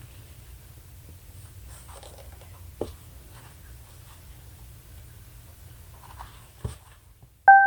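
Faint rustling and two light taps over a low, steady hum, then a bright chiming music cue starts right at the end.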